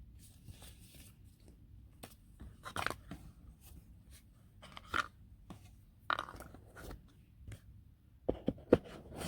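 Hands handling a watch and its packaging: scattered rustles and scrapes with light clicks, and a few sharper clicks near the end.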